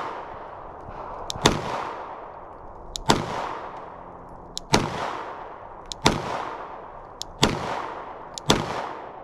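Springfield Echelon 9mm pistol fired in a slow, deliberate string: six shots roughly one and a half seconds apart, each with a short echoing tail.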